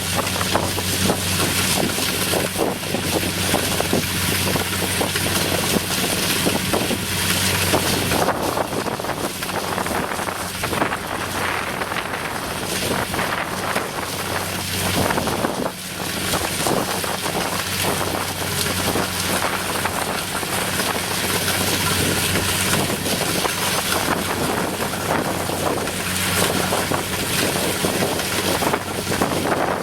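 Kubota DC60 combine harvester's diesel engine running steadily, with wind noise on the microphone.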